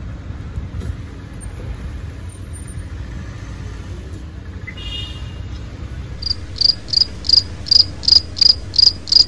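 Steady low rumble of street traffic. In the last three seconds, a loud high-pitched chirping beep repeats a little under three times a second.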